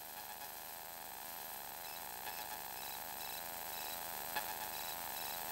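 Steady buzzing hum in the cockpit of a light aircraft in flight, slowly getting louder, with a faint click about four seconds in.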